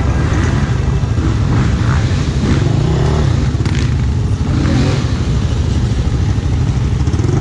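Quad (ATV) engines: a steady low idle close by, with other quads revving up and down as they ride past, two brief rises in engine pitch in the middle.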